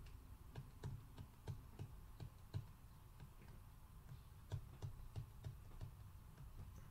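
Faint, irregular ticks and light taps of a stylus pen on a tablet screen while a fraction is handwritten.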